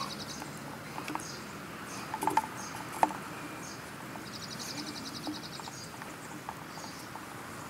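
Light plastic clicks and taps from hands fitting a Homelite string trimmer's fuel tank onto its engine housing, the sharpest click about three seconds in. Midway, a high, fast pulsing trill lasts about a second and a half in the background.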